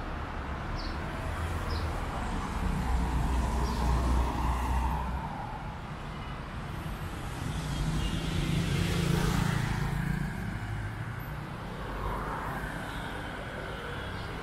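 Road traffic passing on a city street. A vehicle engine drones low for the first five seconds, then another vehicle passes with a swelling rush that peaks about nine seconds in and fades.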